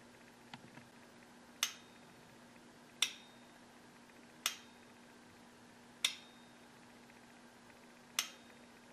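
A 24 V DC octal-base relay clicking five times, about every second and a half, as its coil is energised and the armature snaps over. Each click has a short metallic ring.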